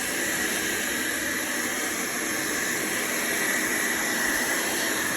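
Hand-held hair dryer blowing steadily, an even rushing hiss, while hair is dried during a keratin straightening treatment.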